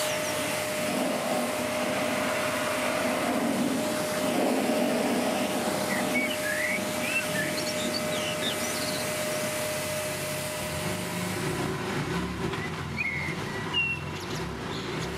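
Electric pressure washer running with a steady motor hum while its lance sprays water to rinse a car, with birds chirping a few times. The hum drops out about ten seconds in.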